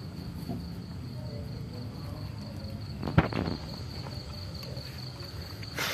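Crickets chirping in a steady high trill, with one sharp knock about three seconds in.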